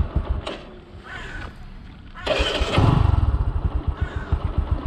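Bajaj Boxer motorcycle's single-cylinder engine running at a low, uneven idle that sags almost to stalling, then picks up loudly about two seconds in and runs on with an irregular beat. The idle is too low: the rider thinks it needs the idle raised, or that the engine may not be warmed up yet.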